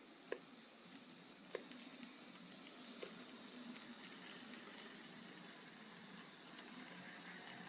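Faint running of an N gauge model train on the layout track, a steady low whirr with a few sharp clicks in the first three seconds.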